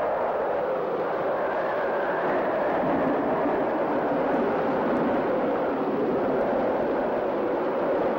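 Storm wind blowing hard and without letup, a dense rushing noise that slowly wavers in pitch.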